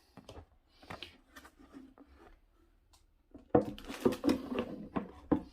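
Handling noises as a water fountain's figure and tray are moved and set down: a few faint ticks, then a cluster of knocks and clatters from about three and a half seconds in.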